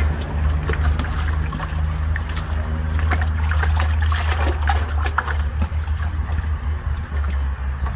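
Boiling water splashing and sloshing in a large scalding pot as a hairy piece of goat is dipped and rubbed in it to loosen the hair, with many small splashes and crackles. A steady low rumble sits underneath.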